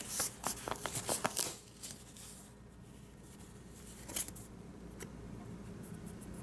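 Paper rustling with a quick run of sharp crackles and clicks as a plastic credit card is pulled off its paper carrier letter, most of it in the first second and a half. After that it goes quieter, with a single click a little after four seconds.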